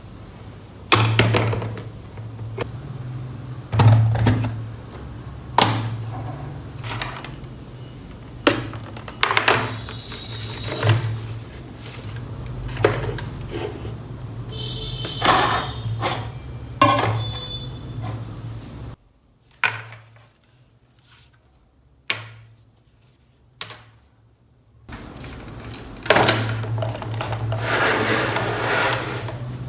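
A series of knocks and thunks, as of objects being handled and set down, over soft background music. It goes much quieter for a few seconds about two-thirds of the way through.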